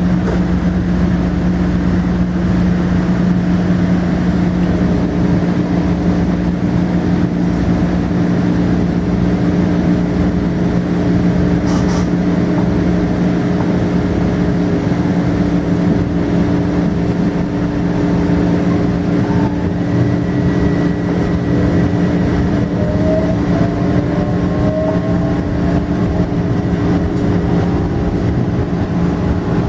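Steady electrical hum of a Metro-North M7A electric multiple-unit train. From about two-thirds of the way in, a higher motor whine slowly rises in pitch as an M7A train gets under way and slides past.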